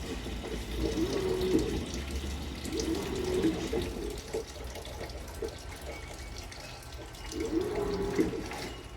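Water running and splashing inside a Samsung 17 kg top-load washing machine, with short low tonal sounds recurring every few seconds.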